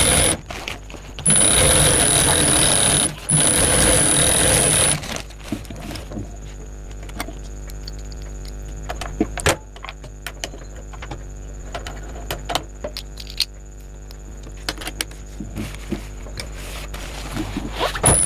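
Primex high-speed industrial lockstitch sewing machine stitching a bag panel in two runs of about two seconds each, with a steady high motor whine. Then it stops and a low hum with small clicks and fabric handling follows, until it runs again right at the end.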